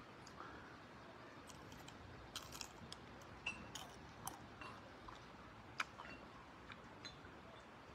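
Faint eating and handling sounds as green chili peppers are eaten: a few short sharp clicks and small crunches over a quiet background.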